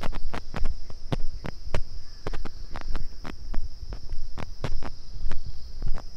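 Footsteps on stony ground, sharp irregular steps two or three a second, over a steady high-pitched buzz.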